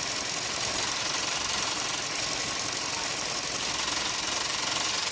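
Vauxhall Meriva B engine idling with a steady rattling buzz from the radiator fan housing, which the owner has traced to something loose on the housing.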